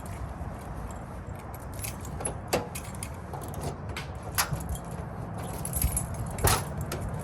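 Scattered light metallic clicks and jingles as a car door and its lock hardware are handled. The sharpest click comes about six and a half seconds in, over a low steady rumble.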